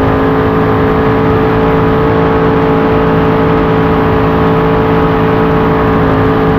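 Supercharged, fuel-injected 427 Chevy big-block V8 of a V-drive race boat running wide open at a steady high pitch, near 98 mph.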